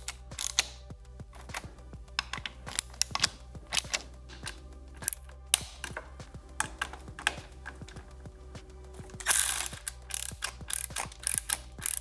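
Ratchet wrench clicking in irregular runs as the handlebar control clamp bolts are tightened, with a louder cluster of clicks about nine seconds in.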